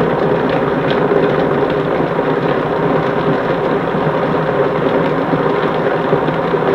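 Vitamix blender motor running steadily on a low variable-speed setting, grinding a thick load of carrots, tomatoes, mandarins, greens and nuts, with a few faint ticks from the solids.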